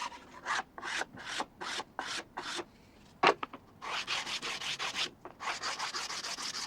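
Light hand sanding of plywood with sandpaper: quick back-and-forth rasping strokes, in two runs with a short pause in the middle.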